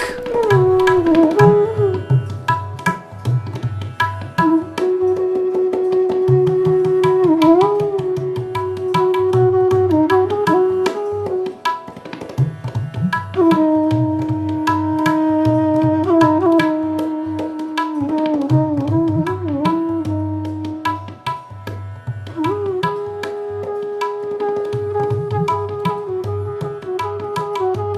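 Indian classical instrumental music: tabla keeping a steady rhythm under a melody instrument that holds long notes and slides between them.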